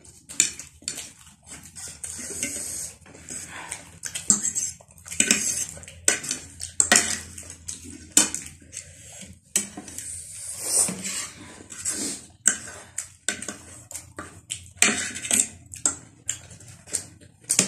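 Metal spoons and forks clinking and scraping on ceramic plates in quick, irregular strokes as food is scooped up.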